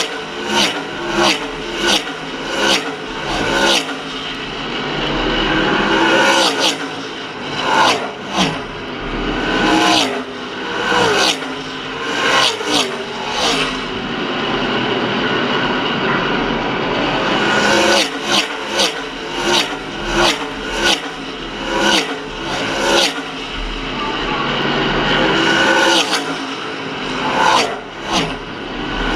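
NASCAR K&N Pro Series West V8 stock cars racing past at speed, one after another in quick succession, each pass a brief loud swell. The passes come in groups, and between them the engines of the field carry on across the oval.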